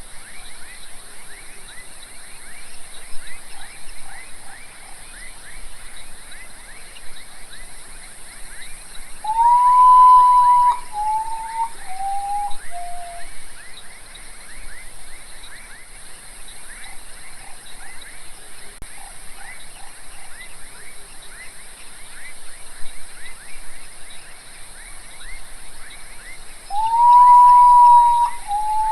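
Common potoo (urutau) singing twice, about 17 seconds apart, the second song near the end. Each song is one long mournful whistle that rises at the start and is then held, followed by three shorter whistles stepping down in pitch. Under it runs a steady background chorus of rapid chirps and a high hiss.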